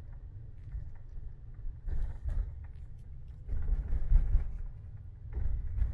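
Low rumble of a van driving on city streets, heard from inside the cab, swelling louder a few times.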